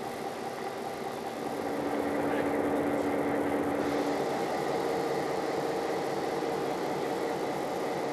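Diesel locomotive engine idling: a steady hum with a few held tones, getting louder about one and a half seconds in.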